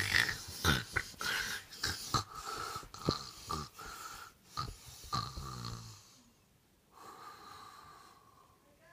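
A person making mock snoring sounds with the mouth: a fast string of noisy breaths, some falling in pitch, for about six seconds, then one steadier, longer breath after a short pause.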